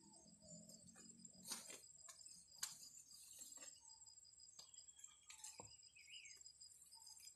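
Faint, steady, high-pitched trilling of insects in a rice field, with two sharp clicks about a second apart a couple of seconds in.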